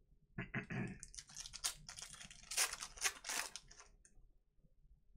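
Foil trading-card pack wrapper crinkling and tearing as it is opened by hand, with cards slid and shuffled. The rustle is densest from about one to four seconds in, then dies away.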